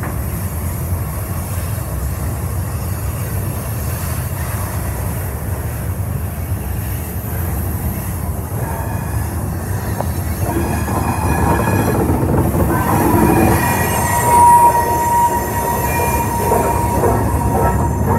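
Freight cars rolling past close by: a steady low rumble of steel wheels on rail. From about halfway, wheels begin to squeal in high steady tones, loudest about three-quarters through, with a few clacks over rail joints near the end.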